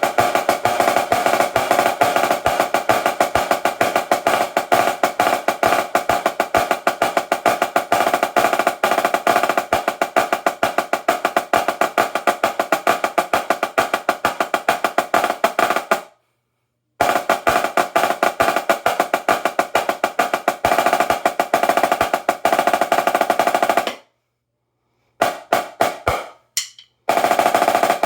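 Dynasty 14x10 marching snare drum played in fast, dense rolls, its top head tuned very high with a strong ring and the snare guts tightened just short of choking. The rolls stop briefly about two-thirds of the way in, resume, then break into a few short flurries near the end.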